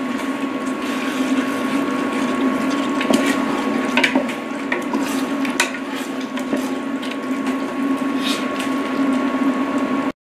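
Wooden spatulas stirring and scraping a thick coconut-milk curry in a stainless steel pot, wet churning with occasional clicks of wood against the metal as the bottom of the pot is deglazed, over a steady hum. The sound cuts out suddenly just before the end.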